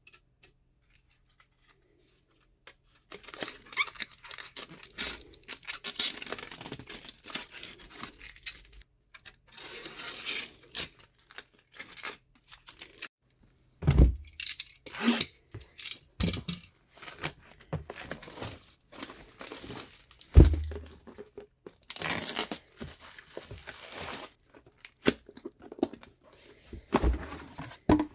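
Packaging being handled and unwrapped: plastic and paper crinkling and tearing in irregular bursts, with three dull thumps.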